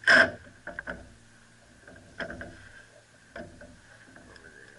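Small wood screws being set into holes in a plywood rod-rack base: a sharp knock at the start, then a few lighter clicks and taps of the screws and wood being handled.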